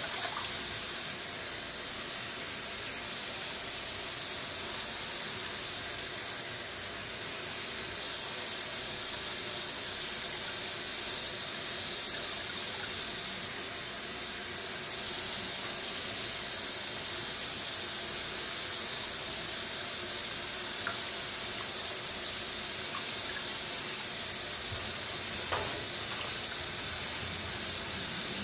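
Kitchen faucet running steadily into a sink basin full of leafy greens, with water splashing from hands rinsing the leaves; a light knock about 25 seconds in.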